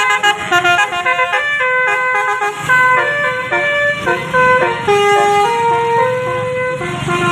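Bus telolet horn of the basuri type playing a melody: a run of quick horn notes, then longer held notes from about three seconds in, over a low rumble.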